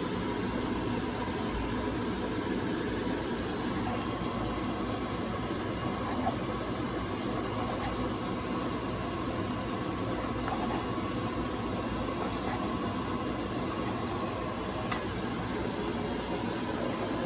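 Steady mechanical hum and hiss with a faint constant tone and no distinct events.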